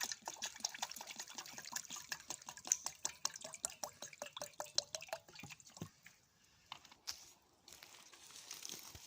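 Water being poured into a mug, splashing and gurgling, stopping about six seconds in.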